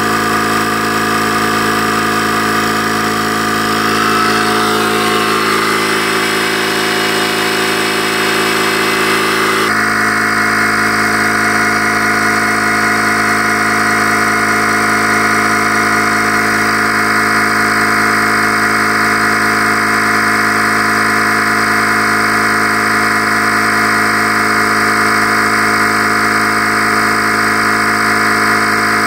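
Parkside 20V cordless tyre compressor running steadily under load, pumping up a quad tyre as the pressure climbs. Its tone shifts slightly about ten seconds in.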